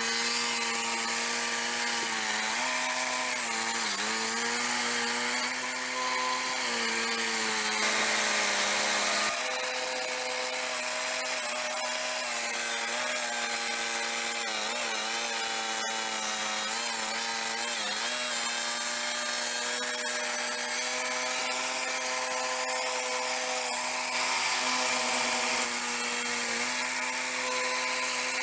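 Swing-blade portable sawmill with a 13 horsepower petrol engine running hard as its circular blade cuts along a log. A steady, pitched drone that dips in pitch briefly a few times as the cut loads the engine.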